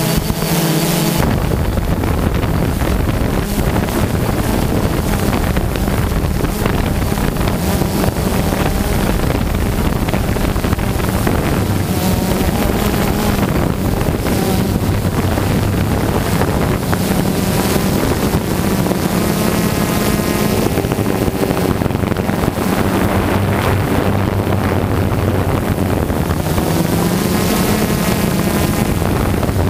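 A quadcopter drone's rotors buzz steadily, with wind rushing over the microphone. The motor pitch wavers and shifts a few times as the drone comes down low over the ground.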